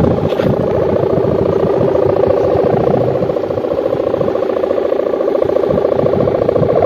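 Sendaren kite hummer droning in the wind: plastic-film (mika) ribbons on bamboo bows vibrating to give a steady, fast-throbbing hum. Two hummers with ribbons of different width, one too wide and one too narrow, sound two different tones together.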